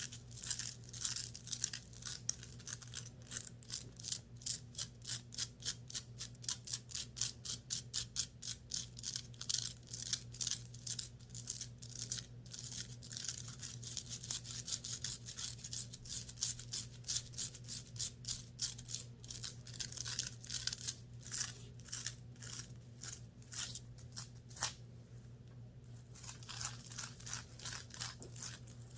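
Fingernails scratching the fabric of a clothing top in quick, repeated raspy strokes, several a second, with a short pause near the end.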